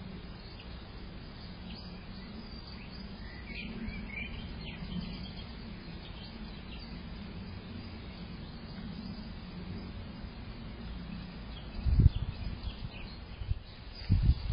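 Small garden birds chirping faintly now and then over a steady low background hum, with a few loud low thumps about twelve seconds in and again near the end.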